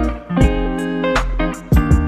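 Music with plucked guitar over a deep bass line and a steady beat.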